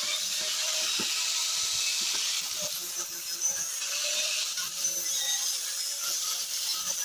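Angle grinder with an abrasive disc grinding red paint off small metal plates, a steady high whine and hiss.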